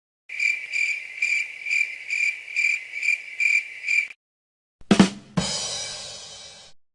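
Crickets-chirping sound effect: a high chirp pulsing a little over twice a second for about four seconds. After a brief gap, a drum sting: two quick drum hits followed by a cymbal that rings out and fades.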